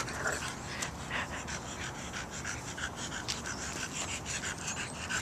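Bulldog panting quickly and steadily with its mouth open, short breathy puffs about two or three a second.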